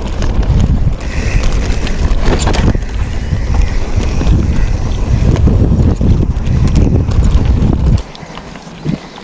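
Heavy wind buffeting the microphone of a camera carried on a moving mountain bike, with a few knocks and rattles mixed in. About 8 s in, the wind rumble cuts off abruptly, leaving fainter clicks.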